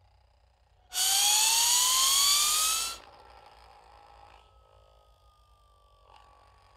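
Cartoon UFO 'zip whistle' sound effect: a loud whistle rising in pitch over a hissing rush, about two seconds long, that cuts off sharply. A faint tone lingers after it, slowly falling in pitch.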